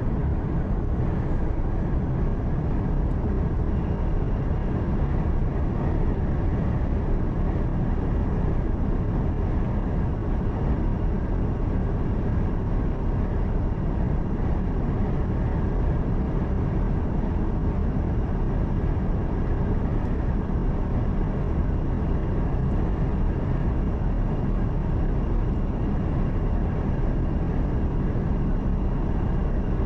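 A truck's engine and road noise heard from inside the cab while it drives at a steady pace: a constant low rumble with no change in level.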